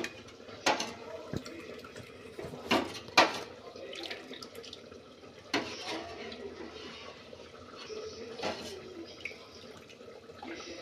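A steel spoon stirs milk in a steel pot, clinking sharply against it about five times, the loudest about three seconds in. Between the clinks, vinegar water pours and splashes in from a steel tumbler as the milk curdles into chhena.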